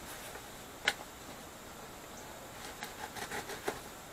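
Small knife blade cutting and scraping along packing tape on a cardboard box: one sharp scrape about a second in, then a few light scratches and taps near the end.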